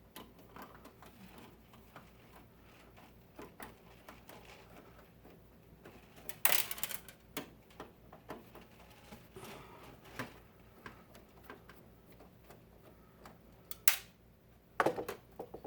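Hard drive mounting screws being taken out of a desktop computer's metal drive frame: scattered small metal clicks and scrapes, with two sharper clacks about six and a half and fourteen seconds in.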